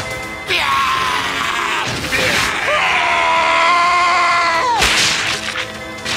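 A man's long yell, rising and sliding at first, then held steady for a couple of seconds and cut off by a sharp hit about five seconds in, over background music.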